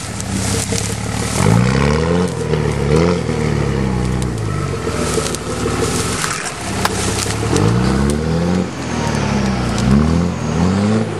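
Diesel pickup truck's engine revving up and down again and again as it spins its wheels through a mud hole, flinging mud. Scattered sharp clicks and crackles run over it.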